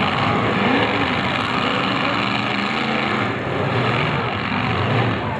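Engines of several demolition derby cars running together in a steady, loud mix.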